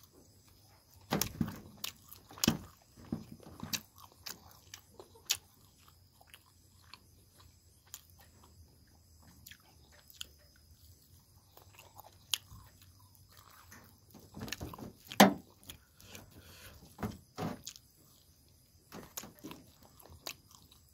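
A man chewing a mouthful of sticky rice close to the microphone, with scattered short wet smacks and clicks. They cluster about a second in and again, loudest, around fifteen seconds in.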